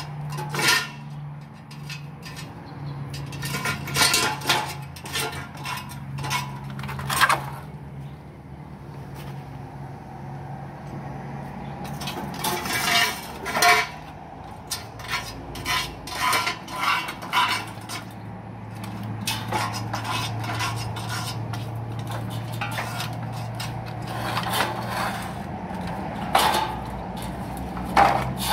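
Irregular knocks and clattering of bamboo poles and metal pipes, some in quick runs, as dogs step over and nudge them, with a low steady hum underneath.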